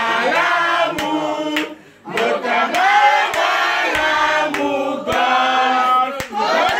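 A group of people singing together in a loose unison, with a brief pause about two seconds in.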